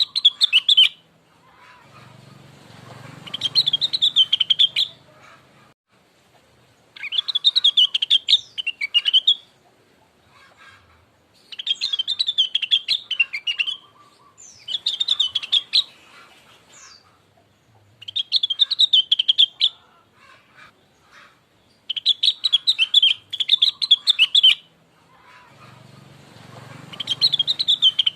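Song of a lesser green leafbird (rengganis or cucak wilis): rapid chattering phrases of high chirps, each two to three seconds long, repeated with short pauses. It is played as a lure call to get a kept bird to answer and sing.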